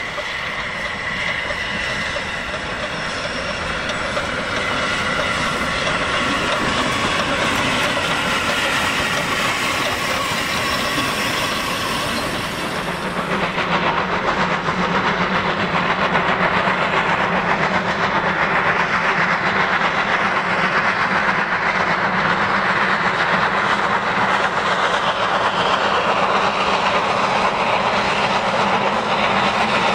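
NGG16 Garratt narrow-gauge steam locomotive working a goods train, its exhaust and the wagons' wheels on the rails making a steady rumble. The sound changes abruptly about a third of the way in, then grows louder as the train draws near.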